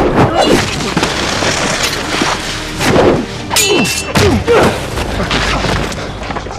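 Film fight sound effects: a rapid series of hits, thuds and effort grunts as two men grapple and trade blows on ice, with a short ringing a little past halfway. A low orchestral score runs underneath.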